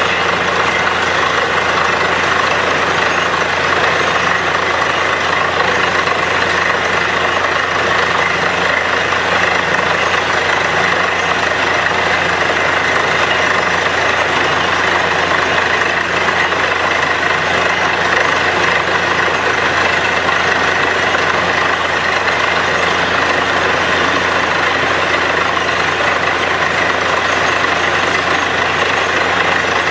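Truck-mounted borewell drilling rig running steadily, its engine and air compressor blowing water and mud slurry up out of the borehole.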